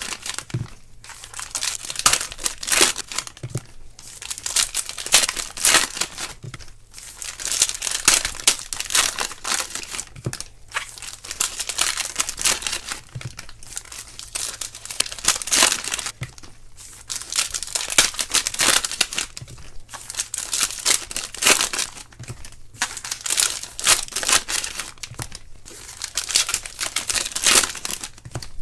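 Foil wrappers of Panini Unparalleled football card packs being torn open and crumpled by hand, in short crinkling bursts that come again and again.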